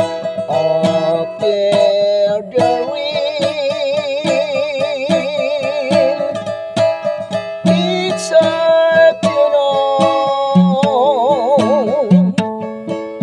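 A man singing over an acoustic guitar with a capo, its strings picked and strummed. He holds two long notes with wide vibrato, one about three seconds in and another about ten seconds in.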